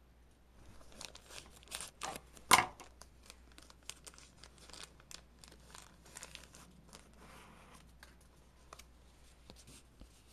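Fingerboard grip tape and its plastic packaging crinkling and tearing as the tape is unwrapped and peeled, a run of irregular crackles with one sharp, loud crackle about two and a half seconds in, then dying down to a few faint ticks.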